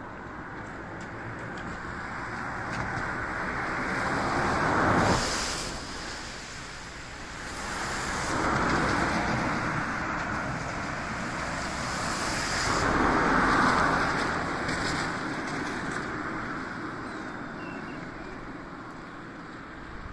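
Three road vehicles pass one after another on a rain-wet road, peaking about five, nine and thirteen seconds in. Each swells up and fades away with the hiss of tyres through water, over a steady wet background hiss.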